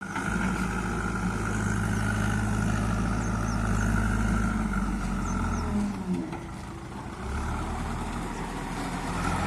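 Heavy diesel engine running steadily, easing off about six seconds in and picking up again a second later.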